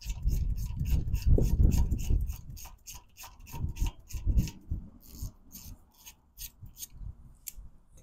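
Quarter-inch-drive ratchet with an 8 mm Allen bit clicking rapidly, about six clicks a second, as a motorcycle front brake caliper bolt is unscrewed by hand. The clicking thins out and slows after about five seconds. Low rubbing and knocking of handling is heard in the first two to three seconds.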